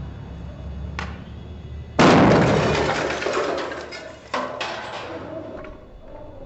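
An old computer blown up: a sudden loud blast about two seconds in that dies away over a couple of seconds, followed by a second, shorter burst.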